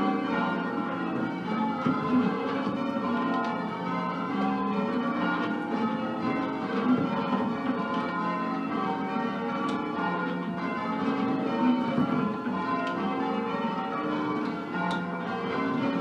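Change ringing on a ring of ten church bells in F, tenor 13 cwt, cast by Mears & Stainbank, Gillett & Johnston and Whitechapel. The bells strike one after another in a continuous, even stream, each ringing on under the next.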